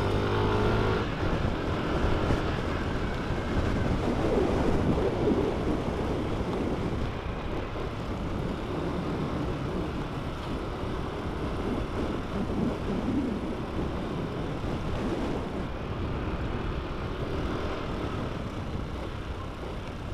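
Motorcycle riding along with its engine running under a steady rush of wind noise. An engine note stands out briefly at the very start.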